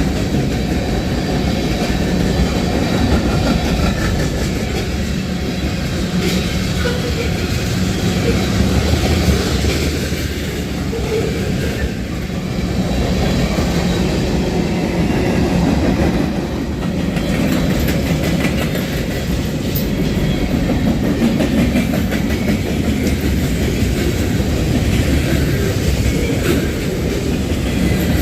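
Freight train rolling steadily past, its railcar wheels clattering over the rail joints.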